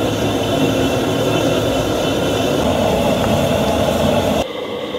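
Gas stove burner roaring steadily under a large stockpot just lit to stew pork bones; the roar drops away sharply about four and a half seconds in, leaving a quieter steady hiss.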